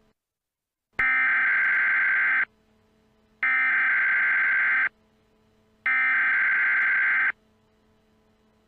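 Emergency Alert System SAME header: three bursts of screeching digital data tones, each about a second and a half long with about a second of silence between them. This is the encoded header that opens an EAS alert, ahead of its attention tone.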